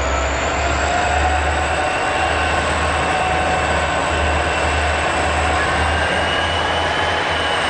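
Diesel locomotive running under way, heard from on board: a steady loud noise over a throbbing low rumble, with a faint whine that rises slowly near the end.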